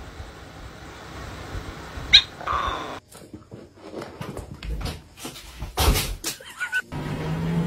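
A short high squeal, then scuffling and knocks as a cat and a dachshund play-fight, with a brief high cry near the end.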